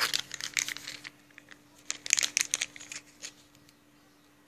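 Small clear plastic zip bag of toy building-block pieces crinkling as it is handled, in two bouts of about a second each, dying away a little over three seconds in.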